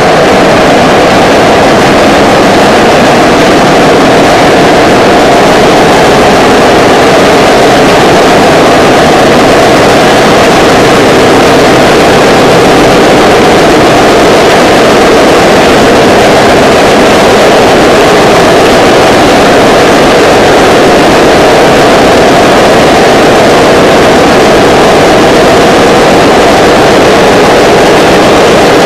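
Concrete pole spinning machine running, with steel pole moulds turning on their support wheels: a loud, steady noise that does not let up.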